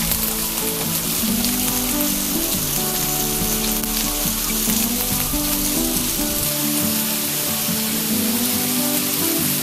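Pork belly pieces sizzling steadily as they fry in a nonstick frying pan and are turned over with chopsticks, their fat rendering as the surfaces start to brown. Soft background music plays underneath.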